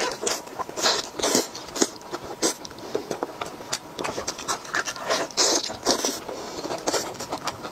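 Close-miked eating sounds: wet chewing and lip-smacking on braised chicken, with the meat being torn apart by plastic-gloved hands. The sound is a dense, irregular run of short smacks and clicks.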